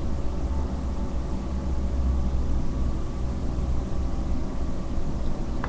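Steady low hum with a faint even hiss behind it, with no distinct events.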